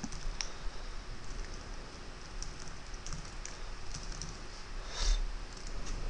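Typing on a computer keyboard: scattered, fairly faint key clicks, with one louder brief rush of noise about five seconds in.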